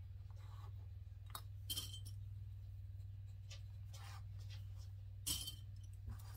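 Light clicks and metallic clinks of sewing pins being handled and pushed through cotton fabric while pinning two pieces together, with two sharper clinks, one early and one near the end. A steady low hum runs underneath.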